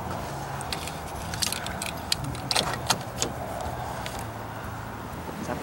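Scattered metallic clicks and clinks of hand-work at the oil cooler line's quick-release connector on a Suburban, fixing an oil leak, over a steady low hum.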